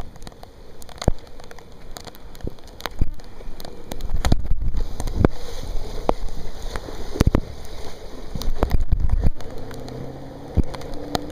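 Rain with drops tapping sharply close to the microphone, while a vehicle drives through the floodwater on the street: a loud low rush of water from about four to nine seconds in, then a steady engine hum.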